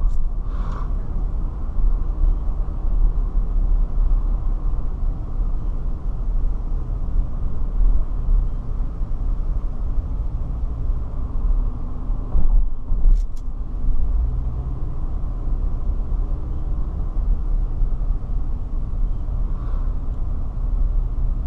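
Steady low road and engine rumble inside a car driving slowly. A couple of brief clicks come about thirteen seconds in.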